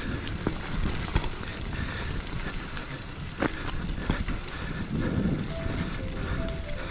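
Mountain bike rolling fast over a bumpy dirt trail, heard from a camera mounted on the bike: a steady rumble of tyres and wind with sharp knocks and rattles as it goes over bumps.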